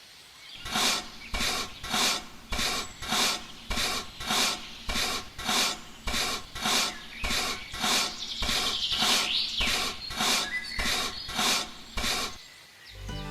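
Steady rhythmic rasping, about nineteen strokes at an even pace of roughly one and a half a second, stopping shortly before the end.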